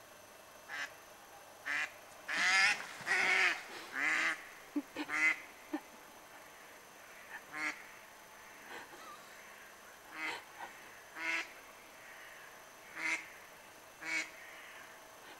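Mallard ducks quacking: a quick run of loud quacks a couple of seconds in, then single quacks every second or so.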